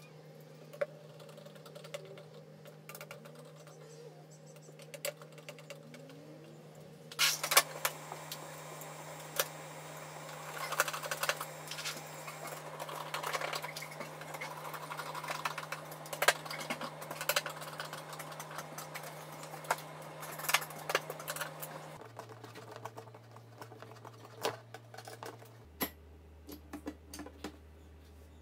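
Clicks, taps and rattles of hands handling flat-pack drawer panels and small metal hardware with a screwdriver, busiest in the middle. A low steady hum runs underneath and drops in pitch twice near the end.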